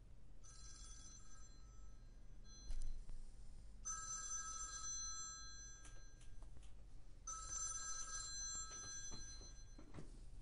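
A telephone ringing: three rings, each about two seconds long with a pause of about a second between, each made of several steady high tones. A single thump between the first and second rings is the loudest sound.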